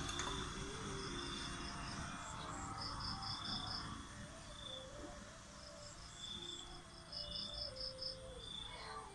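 Insects chirping in rapid pulsed trains and short high calls over soft background music with a slowly stepping melody. A light knock of a ceramic plate set down on the wooden stump comes just after the start.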